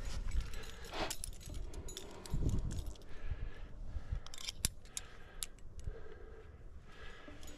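Metal climbing gear (carabiners and quickdraws on a harness) clinking and clicking irregularly as the climber moves on the rock, over a low rumble.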